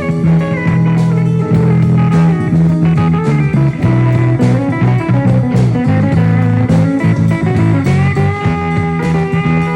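A band playing an instrumental blues-rock jam: guitar lines with sliding, bending notes over sustained low bass notes.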